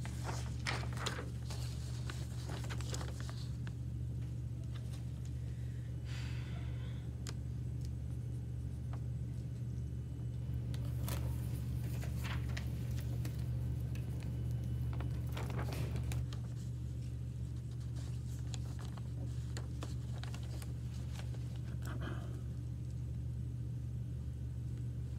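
Quiet classroom room tone: a steady low hum with scattered small rustles and clicks, as of students handling paper and pens while they work.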